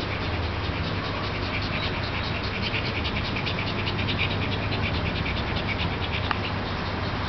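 A poodle and a small flat-faced dog play-fighting, with a rapid pulsing animal sound, many pulses a second, building up about a second and a half in and fading near the end, over a steady low hum.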